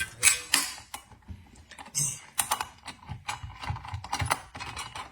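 A hex wrench tightening the set screws on a chainsaw attachment while its metal and plastic cover is fitted: an irregular run of light clicks and taps.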